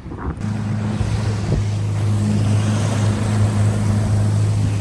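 Evinrude outboard motor running steadily, pushing a boat across open water, with a low, even drone. Wind buffets the microphone and waves wash against the hull. The drone starts abruptly about half a second in.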